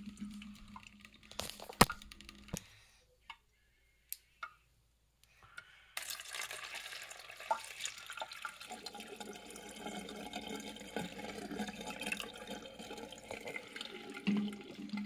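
A sharp click about two seconds in, then a quiet stretch with a few faint ticks. From about six seconds in, a steady stream of water is poured from a plastic soda bottle into a crinkled aluminium-foil bowl and splashes against the foil, as a pour-bottle bucket flush.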